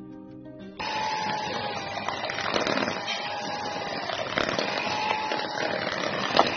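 Electric hand mixer running at a steady speed, its beaters whipping buttercream in a stainless steel bowl, with a constant motor whine; it starts about a second in. Sharp knocks of the beaters against the metal bowl come now and then, the loudest near the end.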